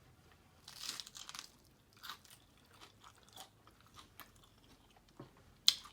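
Chewing and crunching of a lettuce chicken wrap in scattered short bites and mouth sounds, with a sharp click near the end.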